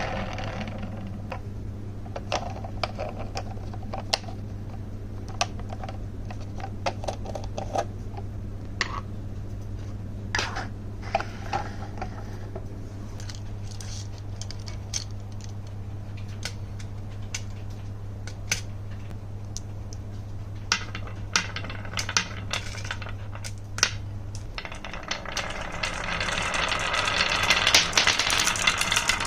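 Marbles clicking and clattering as they run down a HABA wooden marble run, in scattered irregular clicks over a steady low hum. The hum stops near the end, and a louder, continuous rattle builds in its place.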